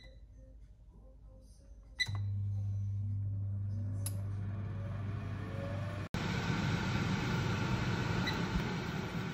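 Philips air fryer's touch panel beeps twice as its buttons are pressed. At the second beep its fan motor starts with a low hum and a whine rising in pitch as it spins up, then runs on as a steady rush of air.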